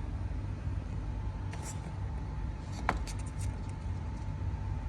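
Light clicks and taps over a steady low rumble and a faint steady hum, the sharpest click about three seconds in.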